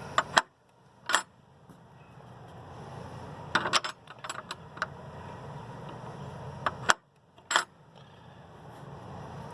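A gate's slide-bar latch being worked by hand to open the gate: a series of sharp clicks and clacks, single ones about a second in, a quick cluster around the middle and a few more near the end.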